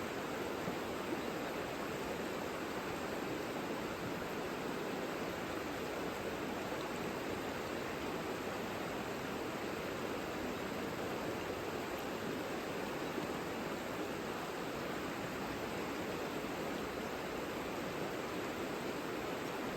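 Savica river flowing, a steady, even rush of running water.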